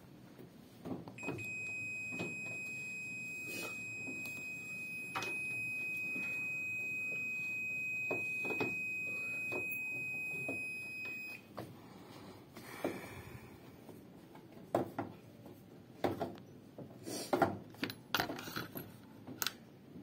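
Abba top-load washing machine's control-panel beeper sounding one long, steady, high-pitched tone for about ten seconds, then cutting off suddenly. A scatter of light clicks and knocks follows.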